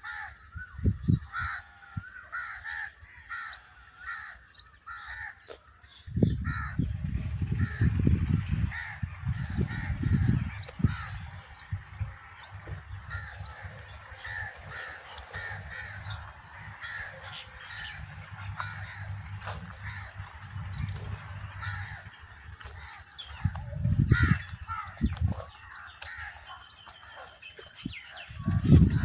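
Crows cawing repeatedly among other birds' calls, with bouts of low rumbling about six seconds in, again near the end, and just before it.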